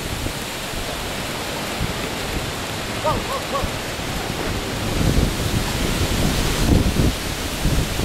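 Storm wind blowing hard across the microphone: a steady rush of wind noise with low buffeting gusts that grow heavier from about five seconds in.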